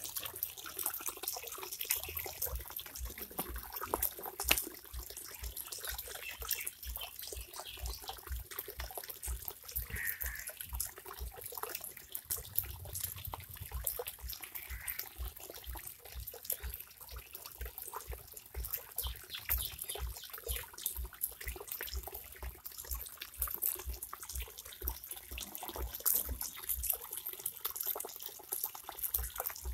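Water trickling and lapping, with a constant crackle of small clicks and splashes.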